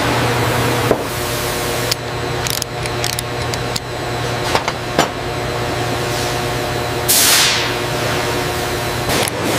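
Factory workshop ambience: a steady machine hum, scattered sharp metallic clicks and knocks, and a short hiss about seven seconds in that falls in pitch.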